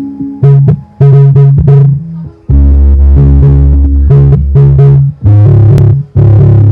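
Electronic music played loud through a 12-inch ADS 1286 dual-voice-coil car subwoofer in an MDF box. Short repeated synth notes give way about two and a half seconds in to a heavy, sustained deep bass line.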